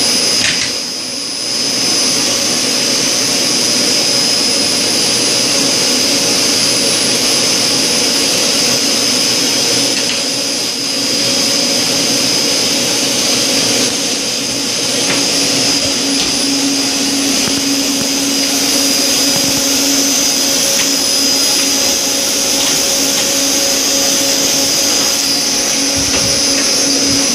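Loud, steady machinery noise: a constant rushing drone with a low hum and a high whine, each held at one pitch, dipping briefly about a second in.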